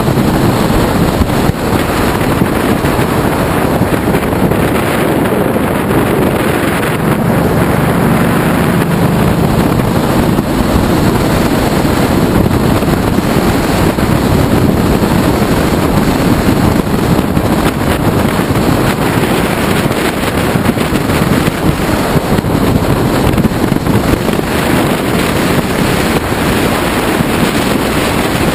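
Wind rushing over the microphone of a camera mounted on a Ducati Multistrada motorcycle at road speed, with the bike's L-twin engine running underneath. A loud, steady rush with no break.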